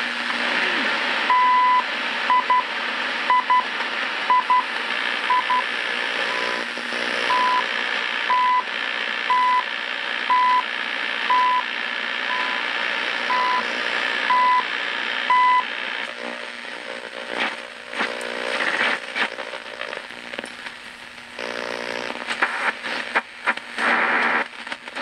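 CHU Canada time-signal broadcast heard through a Hallicrafters S-38D shortwave receiver's speaker: short 1 kHz beeps once a second over shortwave hiss. A little past halfway the beeps stop, leaving static and crackle as the receiver is tuned along the band.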